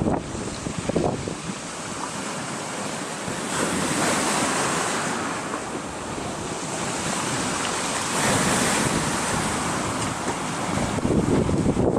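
Sea surf breaking on the shore with strong wind buffeting the microphone; the wash swells and eases over several seconds, with a louder surge near the end.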